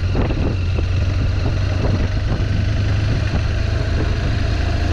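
BMW R 1200 GS boxer-twin engine running steadily as the motorcycle rides up a dirt track, under a constant rush of wind and tyre noise.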